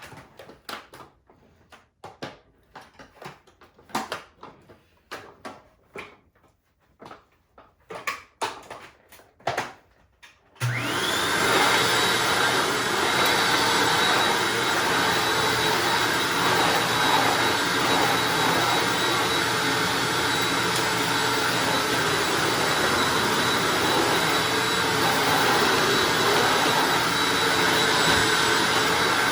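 Scattered clicks and knocks for about ten seconds. Then the Hoover Anniversary upright vacuum switches on, its motor winding up to a high whine, and runs steadily.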